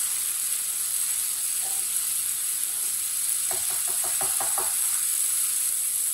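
Masala paste sizzling steadily in a nonstick frying pan as a wooden spatula stirs it. A little past halfway comes a quick run of about seven knocks of the spatula against the pan.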